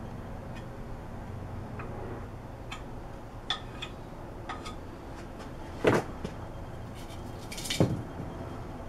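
Tools and parts being handled on a workbench: scattered small clicks and taps, with two louder knocks about six seconds in and near the end, over a low steady hum.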